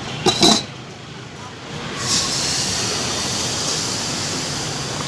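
Steady hiss of steam from the hot chitoi pitha pans, starting about two seconds in, after a brief loud sound near the start.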